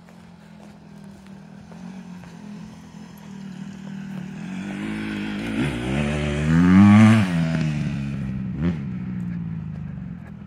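Off-road motorcycle engine, growing louder over several seconds and revving up and back down as it passes close about seven seconds in, then fading.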